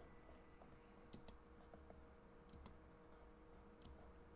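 Near silence with a few faint, scattered clicks from a computer mouse or keyboard being worked, over a faint steady hum.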